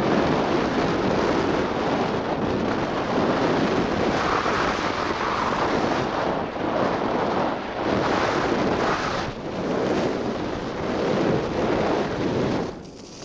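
Wind buffeting the camera's microphone during a fast ski descent: a loud rushing roar that swells and eases every second or two, dipping briefly near the end.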